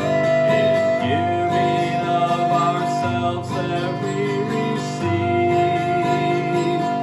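Flute and acoustic guitar duet: the flute holds one long, steady note over strummed guitar chords that change about every two seconds.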